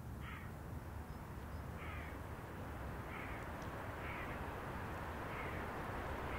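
A bird giving five short, harsh calls, one every second or so, over a steady low background rumble.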